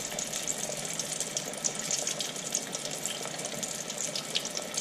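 Breaded seafood deep-frying in hot oil in a stovetop fryer basket: a steady sizzle full of fine crackles.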